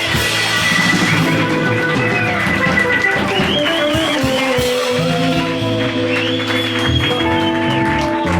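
Live rock band playing an instrumental passage with guitars, bass, keyboards and drums. A high lead melody bends its notes up and down over a steady bass line.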